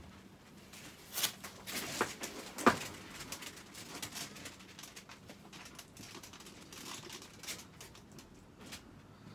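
Clicks and rattles from a wire dog crate being handled, together with the rustle of a plastic tarp underfoot. The sharpest knock comes about two and a half seconds in, with scattered lighter clicks later.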